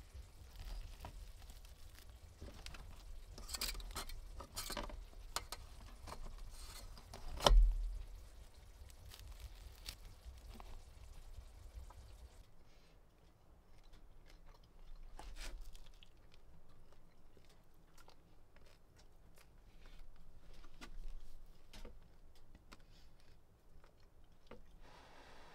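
Crusty home-baked bread crackling and tearing as it is broken apart by hand in a foil-lined springform tin, with one sharp knock partway through as the loudest sound. About halfway through, this gives way to softer clicks of a spoon on a dish and chewing.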